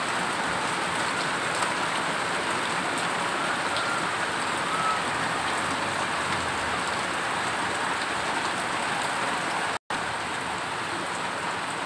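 Steady heavy rain falling, a constant hiss of rain noise that cuts out for an instant near the end.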